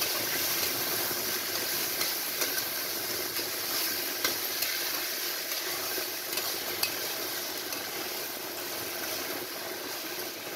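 Mixed vegetables sizzling in hot mustard oil in a pan, with a steel spatula scraping and clicking against the pan as they are stirred.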